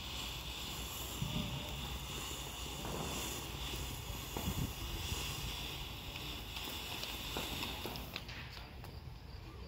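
Ground fountain firework spraying sparks with a steady hiss that thins out near the end as it burns down.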